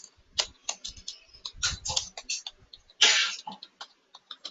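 Computer keyboard typing: irregular, spaced-out keystrokes, with a short rush of noise about three seconds in.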